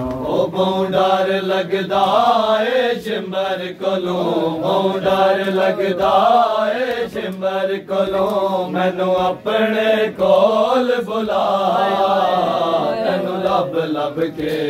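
Men chanting a noha, a Shia mourning lament, with one male reciter's voice leading in long held, wavering phrases.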